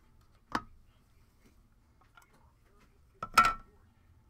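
Trading card pack and plastic card case handled on a tabletop: a sharp click about half a second in, then a louder clatter a little after three seconds with a brief ring.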